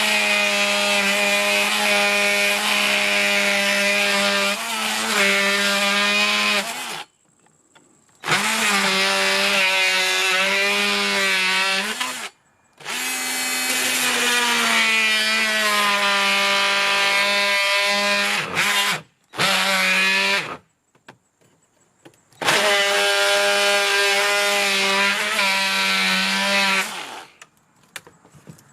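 Ryobi cordless oscillating multi-tool running with a blade fitted and cutting, a steady hum switched on and off in about six runs with short pauses between; the pitch dips now and then as the blade bites under load.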